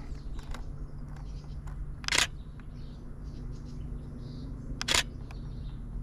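Camera shutter firing twice, about three seconds apart, each a short rattling click, as a small songbird is photographed through a telephoto lens. Faint bird chirps can be heard in the background.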